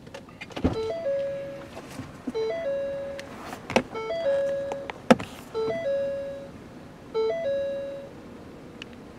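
An electronic three-note chime, a short low note, a higher one, then a longer fading note, played five times in a row, about every second and a half. Three sharp knocks come in among the chimes.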